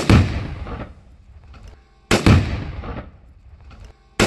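Tannerite exploding: three loud blasts about two seconds apart, each a sudden crack followed by a tail that dies away within about a second.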